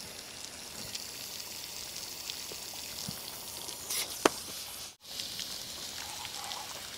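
Radiator being rodded out: a thin rod pushed through the brass core tubes, with water trickling out and light metal clicks, one sharp click about four seconds in. The sound briefly cuts out about five seconds in.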